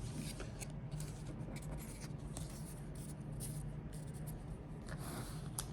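Trading cards being handled: soft scratching, sliding and light ticking of card stock on card and tabletop, with a steady low hum behind it.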